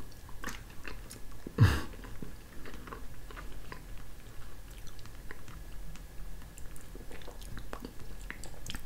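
Close mouth sounds of a person eating spoonfuls of soft gelatin: small wet smacks and clicks throughout, with a louder one about one and a half seconds in.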